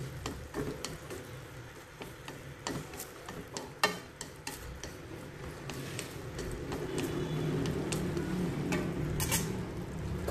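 Snail meat stir-frying in a sizzling pan with chili sauce just stirred in. A utensil scrapes and taps against the pan in scattered clicks, the sharpest knock about four seconds in.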